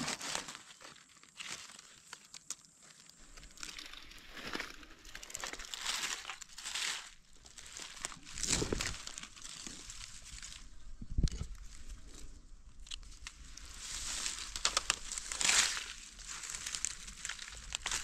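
Dry leaves and grass rustling and crackling in irregular bursts as gloved hands and a knife dig a mushroom out of the leaf litter.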